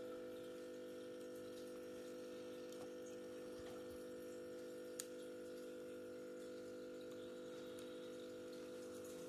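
A small screw being fitted into a notebook's case, with a single sharp click about halfway through and a fainter tick before it, over a steady low hum.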